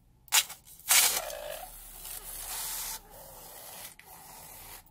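Scissors cutting the rubber of a balloon: two sharp snips in the first second, then the blades rasping and scraping through the rubber for a couple of seconds, quieter towards the end.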